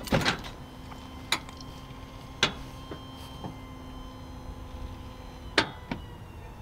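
Lippert electric leveling jack motor running with a steady hum, broken by a handful of sharp clicks; the lowest part of the hum stops with a click about three and a half seconds in.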